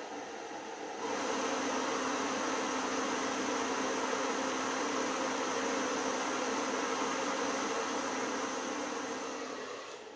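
Handheld hair dryer blowing steadily on its low setting, switched to high about a second in, where it gets louder with a steady hum; it fades near the end.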